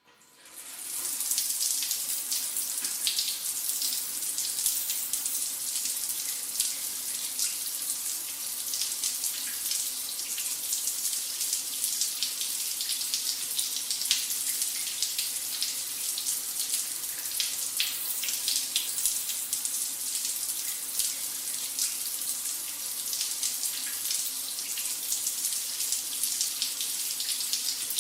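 Shower running steadily, its spray hissing with fine spattering droplets. It fades in over the first second.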